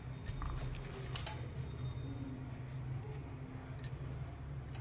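Crisp flatbreads handled on a banana-leaf plate: a few light taps and crinkles, three of them sharper, over a steady low hum.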